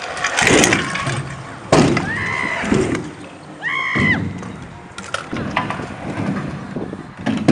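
Stunt scooter wheels rolling over concrete skatepark ramps, with several sharp clacks of landings and deck impacts. Two short high-pitched sounds come about two and four seconds in.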